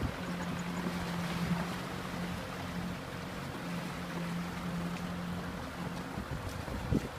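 Kubota M6040 SU tractor's diesel engine running with a steady low hum, wind rushing on the microphone, and a few sharp knocks near the end.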